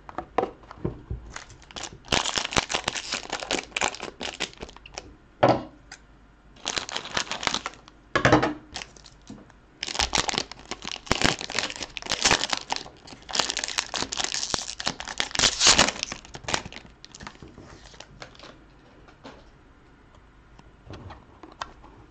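Plastic wrapper of a hockey card box torn off and crinkled by hand in several rustling bursts, with a couple of sharp snaps. It settles into quieter handling near the end.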